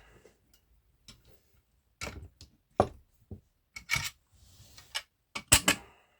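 Picking tools clicking and tapping against the levers inside an eight-lever lever lock. There are a handful of irregular sharp metallic clicks, the loudest about five and a half seconds in.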